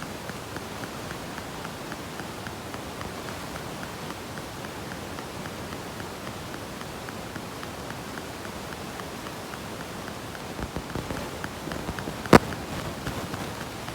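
Sears Roebuck battery wall clock running, its movement giving quick, even ticks. A few scattered knocks come near the end, with one sharp click about twelve seconds in, the loudest sound.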